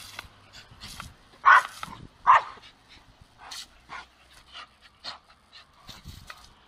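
German Shepherd barking as it snaps at a spray of water from a hose. Two loud barks come close together about a second and a half in, with shorter, fainter yips around them.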